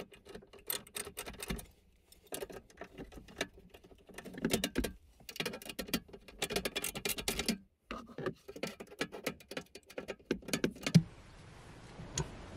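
Hand ratchet clicking in short runs with brief pauses while the small acorn nuts holding a steel console safe's bottom bracket are tightened.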